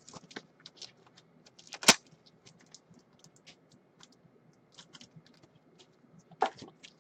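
Trading cards and plastic card holders being handled and set down on a table: scattered light clicks and taps, with one sharp snap about two seconds in and a louder shuffle near the end.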